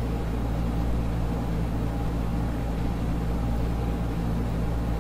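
Steady low hum with several pitched lines and an even hiss underneath, unchanging throughout: the constant background drone of the recording, with no voice.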